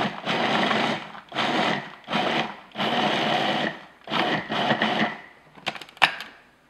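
Food processor pulsed in about six short runs of half a second to a second each, its blade cutting butter into flour, sugar, oats and chopped nuts to make a coarse crumb streusel topping. A few sharp clicks near the end.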